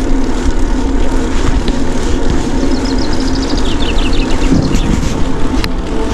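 Steady wind and riding noise rumbling on a bike-mounted action camera, with a constant low hum underneath and a single sharp click near the end.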